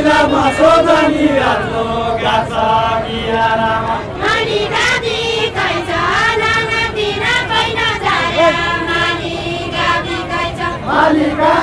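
A group of voices singing a far-western Nepali Deuda folk song together in chorus, without instruments.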